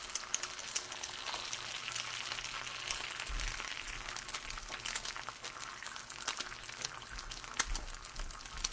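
Eggs frying in butter in a cast iron pan over moderate heat: a steady sizzle with scattered small pops and crackles.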